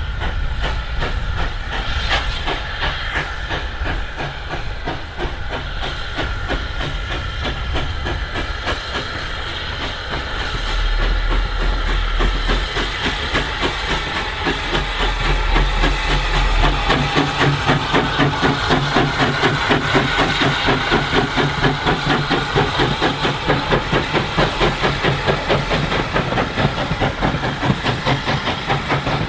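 SECR O1 class 0-6-0 steam locomotive working a passenger train, its exhaust chuffing in a steady rhythm with steam hissing. The beats grow louder from about a third of the way in as the engine draws near and passes.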